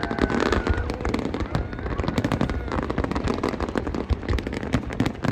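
Fireworks display: a dense, rapid crackle of sharp cracks and pops over deep booms.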